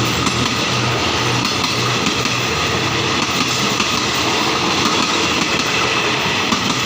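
Passenger train's bogie coaches rolling past, steel wheels clattering steadily over the rail joints.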